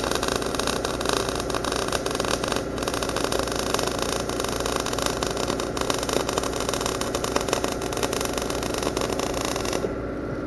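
Short-circuit MIG welding arc crackling and sputtering steadily, then stopping abruptly near the end. An engine-drive welder's engine runs steadily underneath.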